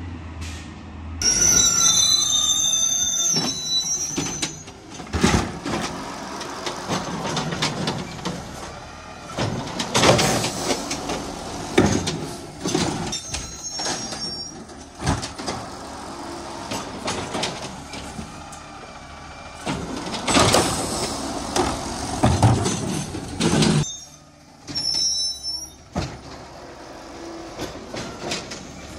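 Automated side-loader garbage truck collecting carts: a high squealing whine near the start, then a long run of bangs and knocks as the arm grabs, lifts and shakes carts into the hopper, over the truck's running engine.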